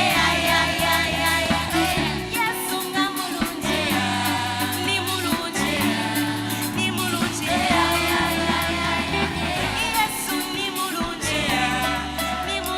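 A Christian worship band playing a song with voices singing over it, held bass notes under a wavering sung melody.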